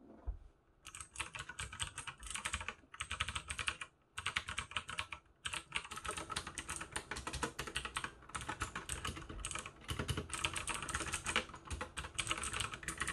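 Fast typing on a Thinkway Tiny Multi mechanical keyboard with Outemu blue (clicky) switches, a dense run of sharp key clicks. It starts about a second in, with two brief pauses.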